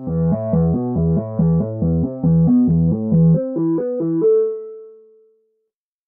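Wavesequencer Theia software synthesizer playing its LowSoftSawTone preset: a saw-wave lead phrase over low notes pulsing about two and a half times a second. It ends on a held note a little after four seconds in, which fades away.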